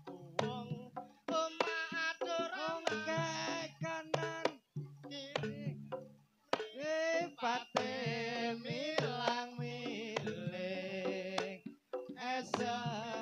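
Jaranan gamelan music over a sound system: sharp kendang drum strokes and steady low sustained tones under a singer's wavering, ornamented voice.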